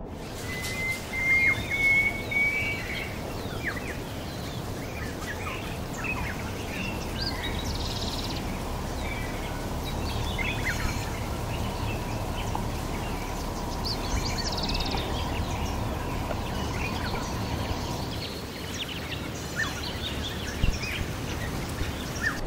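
Birds chirping and calling over a steady rushing background, with a rising whistled note near the start.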